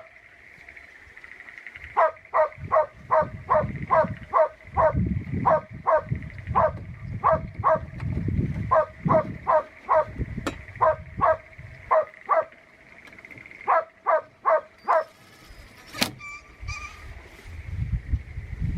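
A dog barking over and over, about two to three barks a second, in runs broken by short pauses. A single sharp knock about sixteen seconds in, with low wind rumble underneath.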